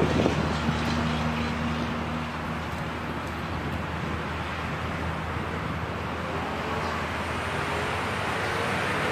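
Steady hum of a motor vehicle engine under a haze of traffic noise; from about seven seconds in, an engine note slowly rises in pitch.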